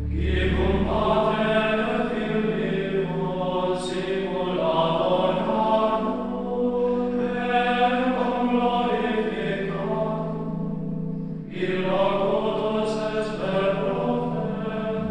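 Background choral music: voices singing a slow chant in long held phrases, with a brief break about three-quarters of the way through.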